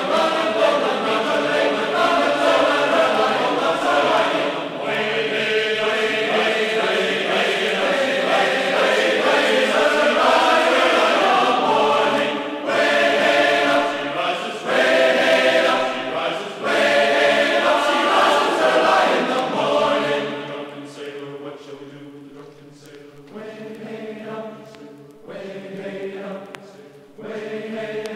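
Background music: a slow piece of sustained chords that drops to a quieter, sparser passage about two-thirds of the way through.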